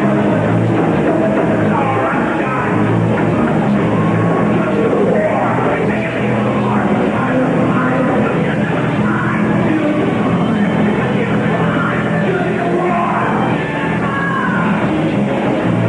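Rock band with drums, bass and electric guitar playing live, loud and steady without a break.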